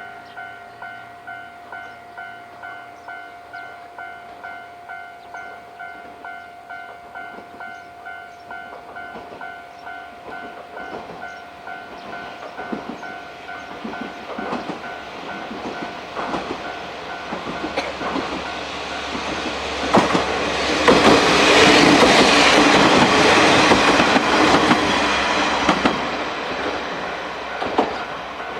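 Japanese level-crossing warning bell chiming steadily at about two strokes a second. A train then approaches and runs through the crossing, its wheels clacking over the rail joints. The train is loudest about two-thirds of the way in, drowns out the bell, and fades near the end.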